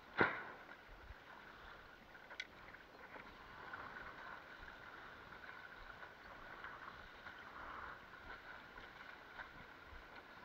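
Water lapping and gurgling along the hull of a Fanatic Ultra Cat windsurf longboard as it sails through calm water. There is a sharp knock just after the start and a smaller click about two seconds in.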